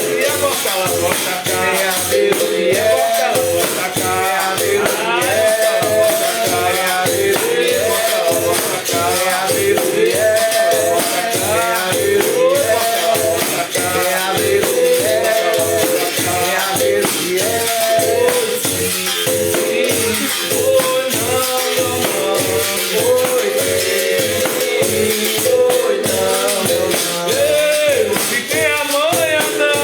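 Bamboo berimbaus played with caxixi shakers in a steady, even capoeira rhythm, with voices singing over them.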